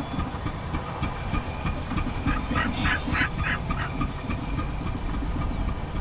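Oil-well pump engine thumping steadily. About two seconds in, a short run of about five quick, higher notes cuts through it.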